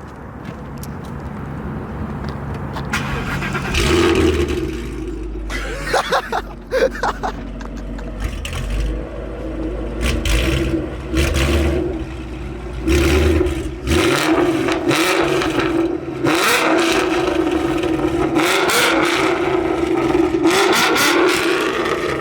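Ford Mustang GT 5.0 V8 fitted with new long-tube headers, running loud and revved in repeated surges, some short and some held.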